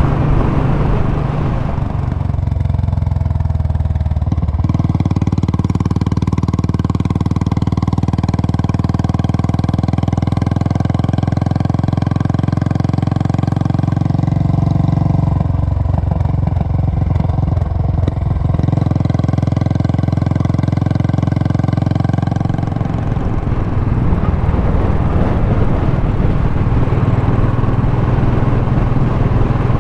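Royal Enfield Classic single-cylinder motorcycle engines running steadily at cruising speed. The tone changes abruptly a few times, about 4, 15, 19 and 23 seconds in.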